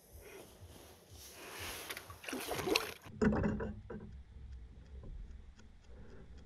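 Handling and water noises on a plastic fishing kayak as a caught pike is brought aboard. A noisy rush builds over the first three seconds and cuts off abruptly, a thump follows, then quieter small taps.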